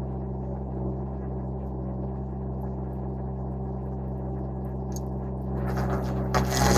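Derette V1000 mini skid steer running with its stump grinder attachment, a steady low drone. About five and a half seconds in, a loud grinding burst comes in as the grinder cuts into the stump.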